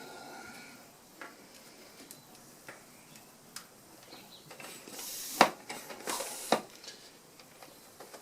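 Handling noise while working on a bicycle wheel and tyre: scattered light clicks, then a short stretch of rustling and knocking with two sharp clicks about five and six and a half seconds in.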